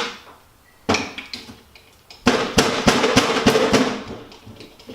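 Sharp metallic knocks on the drill's metal motor housing, a single knock at the start, another about a second in, then a quick run of taps with a short ring, as the stuck field windings are persuaded to slide out.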